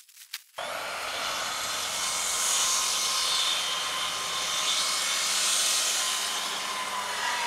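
Chainsaw cutting wood, running steadily. It comes in suddenly about half a second in.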